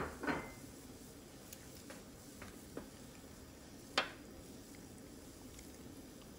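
Chunks of raw lamb dropped by hand into a pot of water, each landing with a short, sharp splash. Two come right at the start and the loudest about four seconds in, with a few faint knocks in between.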